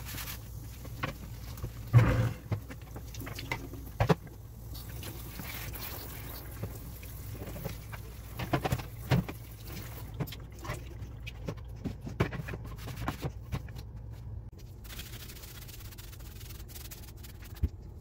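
Plastic refrigerator drawers and shelf parts knocking and scraping against each other and a stainless steel sink as they are scrubbed and rinsed, with a few sharp clunks, the loudest about two seconds in.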